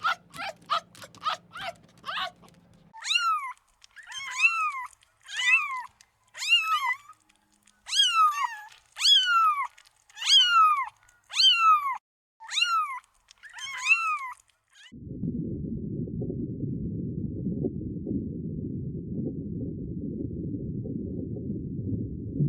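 Rapid short high yips, then a cat meowing about a dozen times, each call rising and falling in pitch, roughly one a second. About two-thirds of the way through the meows stop and a steady low rumbling noise takes over.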